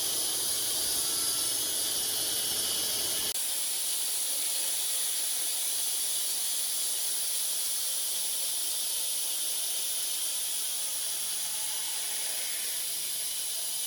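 Band sawmill blade cutting through a walnut log: a steady hiss, with a sudden change about three seconds in where the lower rumble drops away.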